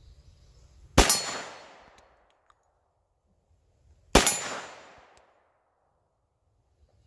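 Two shots from a Glock G40 10mm pistol, about three seconds apart, each a sharp report trailing off over about a second.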